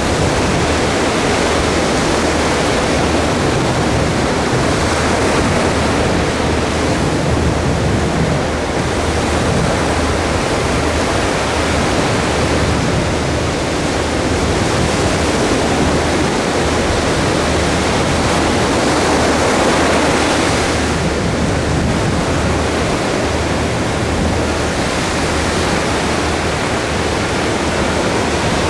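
Ocean surf breaking just offshore and washing up the sand at the water's edge: a loud, continuous rushing that swells and eases only a little.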